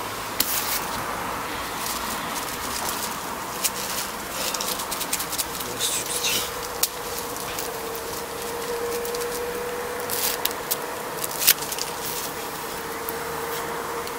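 Scattered clicks and light rustling of small objects being handled in the hands, over a steady hiss. A faint steady hum comes in after about four seconds.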